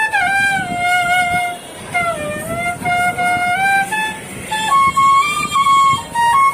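Background instrumental music: a single melody line of held and sliding notes with no beat.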